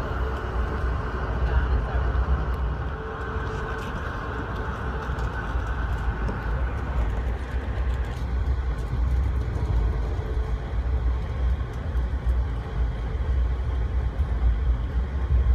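Steady low rumble of a moving passenger train heard from inside the coach, with wheels running on the rails and an occasional faint click.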